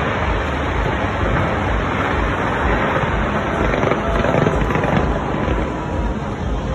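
Fireworks display in full swing: a dense, continuous run of booms and crackling bursts.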